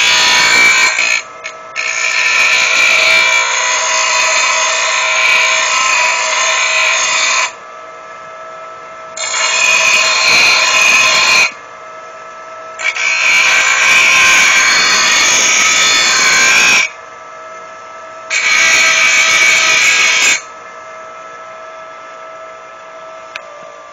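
Bench grinder's fine wheel grinding the edge of a steel lawn mower blade to sharpen it, in four passes of loud metal-on-stone rasping. Between passes the grinder runs on its own with a steady hum. After the last pass, about twenty seconds in, only that hum remains and it slowly grows fainter.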